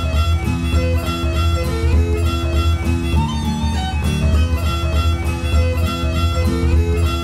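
Instrumental background music: a stepping melody over a steady, pulsing bass beat.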